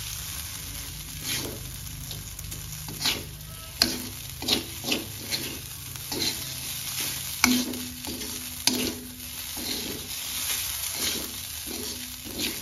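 Fried rice sizzling in a metal wok as a long metal spatula stirs and tosses it, scraping and knocking on the pan at irregular moments, with a few sharper clanks.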